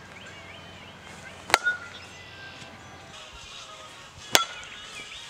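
Softball bat hitting two soft-tossed softballs, about three seconds apart: each a sharp crack with a brief ringing ping, the first followed at once by a softer knock. Birds chirp faintly throughout.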